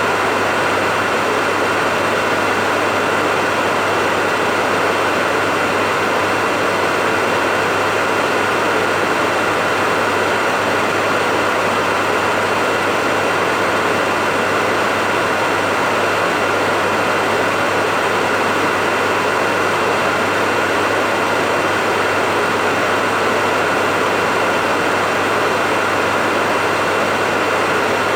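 Electric hair dryer running steadily, with an even airy blowing, a low motor hum and a higher steady whine from the fan.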